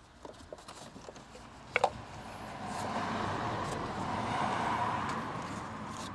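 A single sharp click about two seconds in as an ignition coil is worked into place on the S65 V8, then a rushing noise that swells for a few seconds and fades.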